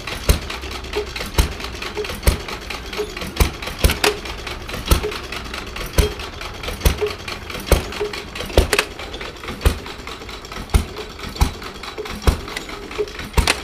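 Small-scale Case stationary straw baler running, its plunger packing straw with a regular knock about one and a half times a second over a steady mechanical hum.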